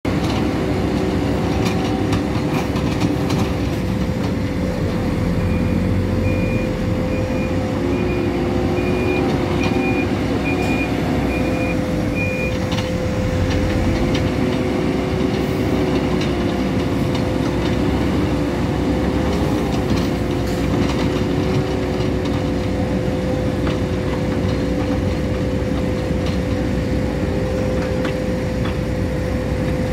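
Hidromek 102B Supra backhoe loader's diesel engine working under changing load, its pitch rising and falling, with a steady whine over it. Its reversing alarm beeps about once a second for some seven seconds in the first half.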